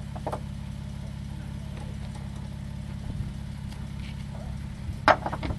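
Off-road vehicle's engine idling steadily. Near the end comes a brief clatter of a few quick sharp sounds.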